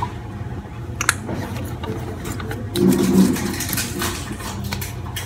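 Rustling and light knocks of things being handled and packed into a fabric backpack over a steady low hum, with a brief louder noise about three seconds in.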